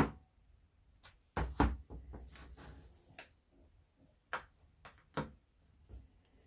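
Handling clicks and knocks during brake work. A Honda CB750 front brake master cylinder is set down on a paper-covered bench with a few knocks about a second and a half in, then comes a short rustle. After that, separate small clicks of circlip pliers working a circlip.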